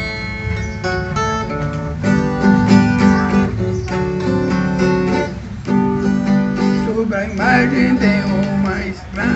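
Viola caipira, the Brazilian ten-string folk guitar, played solo: a melody of plucked notes over ringing bass strings, breaking off briefly about five and a half seconds in.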